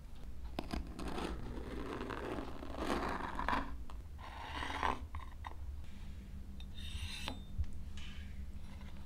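Large kitchen knife cutting through a baked sponge cake, several scraping, crunching strokes as the blade goes through the crust and rubs on the board, followed later by a couple of light clicks.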